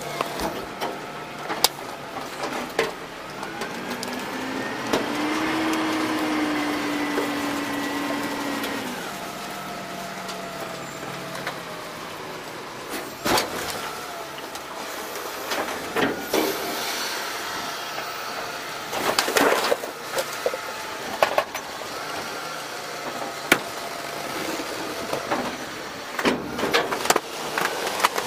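Hydraulic packer of a DaDee Scorpion full-eject automated side loader garbage truck cycling: a whine rises about four seconds in, holds, and drops away near nine seconds as the blade sweeps trash into the body. Later come a series of sharp knocks and thuds as a new load of trash is dumped into the metal hopper, and the whine rises again near the end.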